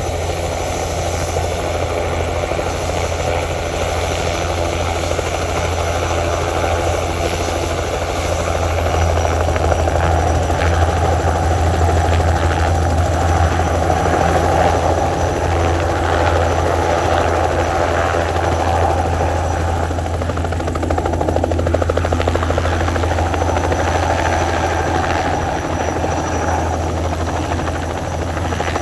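Helicopter flying, its rotor and engine running with a steady, continuous drone that grows somewhat louder near the middle.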